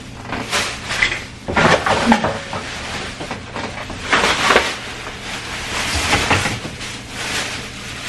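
Thin plastic shopping bag rustling and crinkling in several irregular bursts as it is handled.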